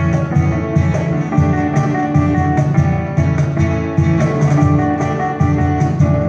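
Live band music: acoustic and electric guitars strumming, with a cajón keeping a steady beat.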